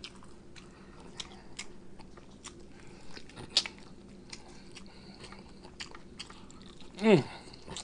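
A person biting and chewing a barbecue-sauced chicken drumstick: irregular wet mouth clicks and smacks, with one sharper click about three and a half seconds in. Near the end there is a brief voiced sound from the eater.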